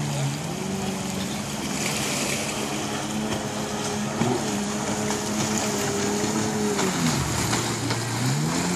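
Jet ski engine running at speed over a steady hiss. About seven seconds in its pitch drops sharply as the throttle eases, then climbs again near the end.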